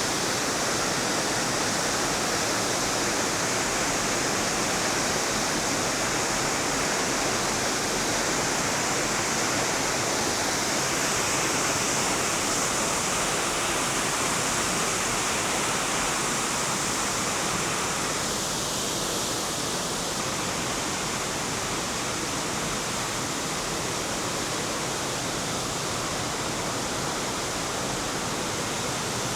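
River water rushing steadily over rocks in a gorge: a continuous, even rush that eases slightly about two-thirds of the way through.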